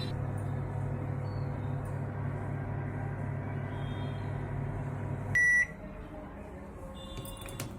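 Microwave oven running with a steady low hum, which stops about five seconds in with one loud high beep as the cooking cycle ends.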